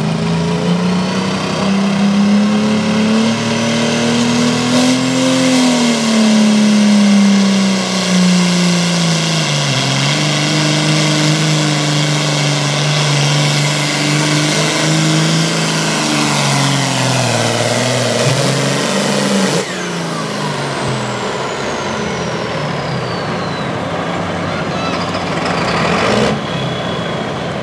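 Classic super stock John Deere pulling tractor's turbocharged diesel engine running at full power under the load of a weight-transfer sled, its pitch climbing, sagging and climbing again as it loads down. About twenty seconds in the engine cuts off and a high whine slides slowly down for several seconds.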